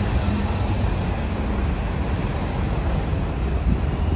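City street traffic: articulated transit buses and cars passing, a steady low engine drone with road noise.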